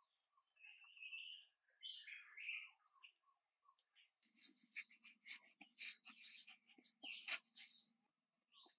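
Hands pressing and patting wet mud into place: from about four seconds in, a quick run of soft wet slaps and squelches that stops about a second before the end. Faint high chirping calls come in the first three seconds.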